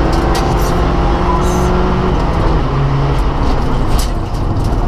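Rally car engine running hard at steady revs, heard from inside the cabin with drivetrain and road noise, with a brief clatter and dip in loudness about four seconds in.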